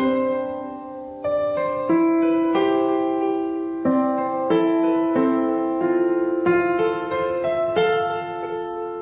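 Background piano music: single notes and chords struck every half second to a second, each left to ring.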